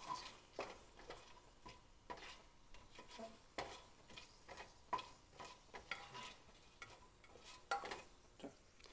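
Metal spatula stirring whole spices in hot oil in a stainless steel pot: light clicks and scrapes against the pot about twice a second, over a faint sizzle.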